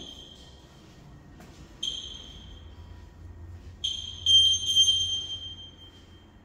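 High bell-like pings, all at the same pitch, each struck sharply and ringing out as it fades. There is one at the start and another about two seconds in, then a louder cluster of several about four seconds in.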